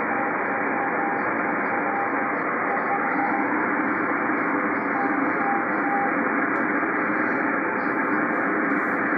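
Icom IC-R8500 shortwave receiver in CW mode giving a steady band of static hiss, with a faint single-pitch Morse tone from the M12 Russian number station keying on and off through it. The Morse stops about six seconds in, leaving only the static.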